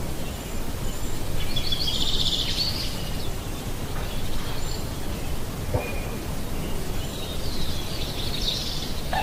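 Steady outdoor background noise, with two faint high-pitched calls, one about a second and a half in and one near the end.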